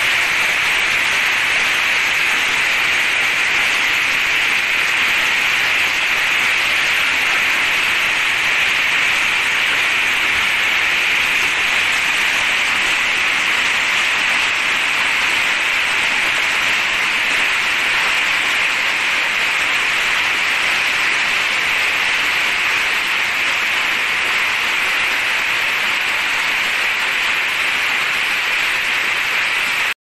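Heavy rain and hail pelting down on corrugated roofing, a loud, steady hiss that cuts off suddenly at the end.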